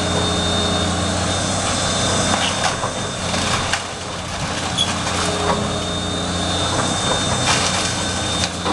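Heavy demolition machine's diesel engine running steadily, with scattered sharp knocks and cracks of wood and debris being broken or scraped.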